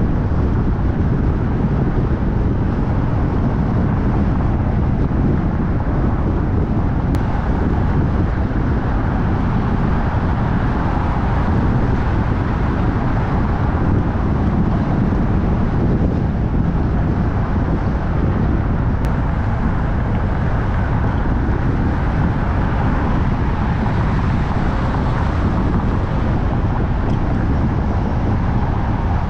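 Steady low rumble of a car driving, road and wind noise.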